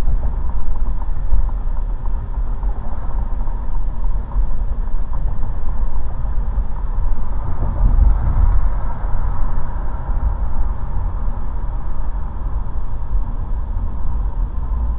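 A car moving at road speed, heard from inside the cabin: a steady low rumble of tyre, road and engine noise, swelling slightly about eight seconds in.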